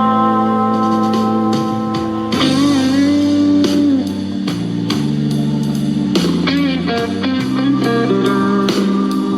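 Guitar-led blues-rock music played back through a small portable Bluetooth speaker, with an electric guitar bending notes over a moving bass line.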